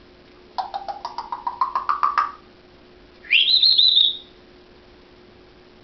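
African grey parrot vocalizing: a rapid run of short clicky notes, about a dozen, rising slowly in pitch, then after a second's pause a short whistle that sweeps up and holds high.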